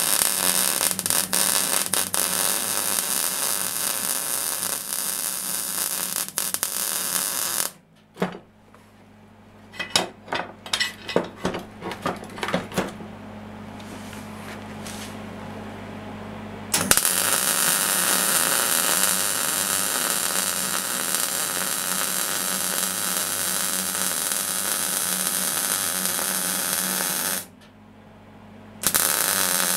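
MIG welder arc crackling and hissing as a bead is laid on steel, in two long runs of several seconds each with a short pause between, then a brief final burst near the end. During the pause there are a handful of short clicks.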